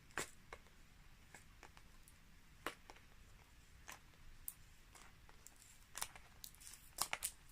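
Faint, scattered clicks and scratches of hands working at scotch tape on a small cardboard gift box to open it, a few more coming close together near the end.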